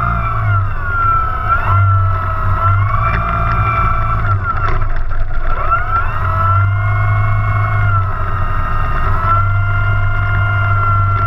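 Electric RC airplane's brushless outrunner motor and propeller whining at low throttle while the plane taxis on the ground. The pitch glides down about four seconds in and climbs back a second or two later, over a steady low propeller hum.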